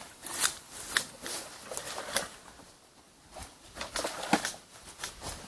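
A rake scraping through leaves and ground litter in short, irregular strokes, with a quieter pause around the middle.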